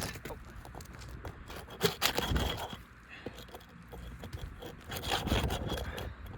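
Asphalt roof shingles being pried up and lifted, a tool scraping under them with irregular clicks and crackles. The scraping eases off for a while in the middle and picks up again near the end.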